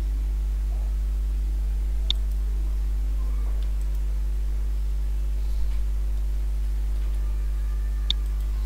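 Steady low electrical hum with its overtones, with a faint click about two seconds in and another near the end.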